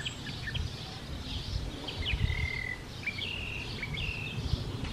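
Small birds chirping outdoors: scattered short chirps and a few held whistled notes, over a low steady rumble.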